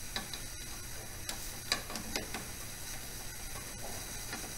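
Light metal clicks and taps as a part is slid into and fitted inside the open gearbox housing of a Bridgeport 8F power feed. There are a handful of them in the first couple of seconds, the loudest a little under two seconds in, then only odd faint ones.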